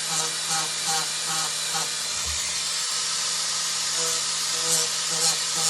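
Small high-speed power tool grinding away the plastic of a tape measure's case, a steady whirring hiss that pulses about two to three times a second as the tool is worked back and forth.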